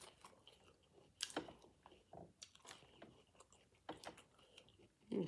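Close-up chewing of salad: soft, wet crunches of lettuce and vegetables with scattered short mouth clicks, the louder crunches about a second in and again about four seconds in.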